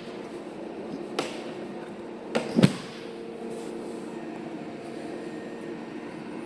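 Kemppi X8 MIG welding set humming steadily while switched on, with a light knock about a second in and two sharper knocks around two and a half seconds, like a feed-unit cover or the machine being handled.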